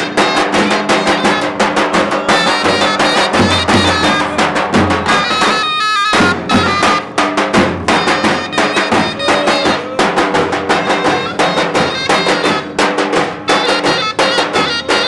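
Turkish davul zurna music: several davul bass drums beaten in a steady rhythm under a zurna playing a melody.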